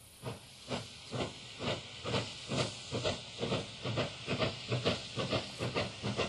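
QJ-class steam locomotives double-heading a freight train, working hard with a rhythmic exhaust chuff about twice a second that grows louder as they approach.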